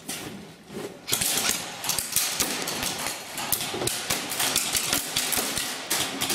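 Airsoft guns firing. A dense, rapid clatter of sharp shots starts about a second in and keeps going.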